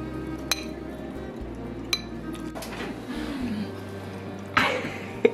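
Background music with a steady bass line, under two light clinks of a utensil against a ceramic bowl of sauce, and a short, louder rustle near the end.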